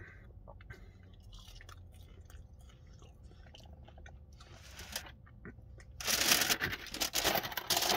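Faint chewing of chips, then from about six seconds in a loud, crackling rustle of a paper takeaway bag being handled.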